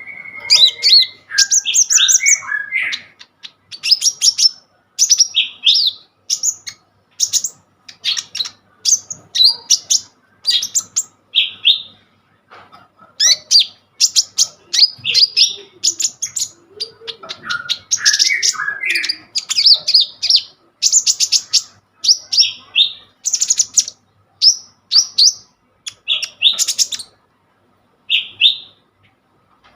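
Kolibri ninja sunbird singing vigorously: quick, high, thin chirping and twittering phrases, one after another with short pauses between them.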